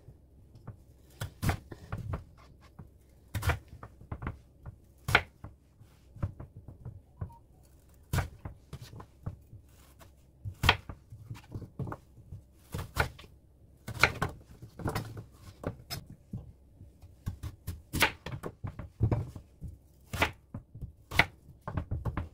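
Kitchen knife cutting a raw Korean radish into cubes on a wooden cutting board. Each cut ends in a sharp knock on the board, at an uneven pace of about one a second.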